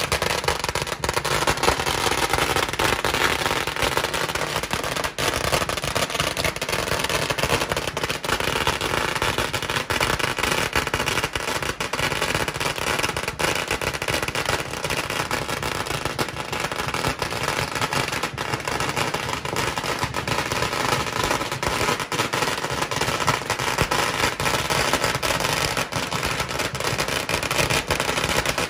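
A long string of firecrackers going off in a rapid, unbroken crackle of bangs.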